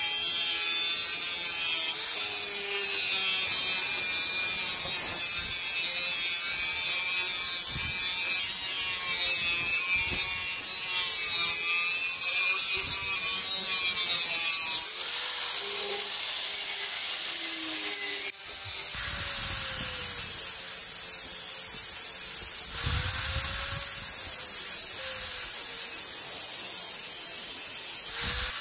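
Handheld electric angle grinder running, its abrasive disc grinding the steel of a machete blade: a steady high whine with a gritty grinding hiss. The sound shifts abruptly twice in the latter part.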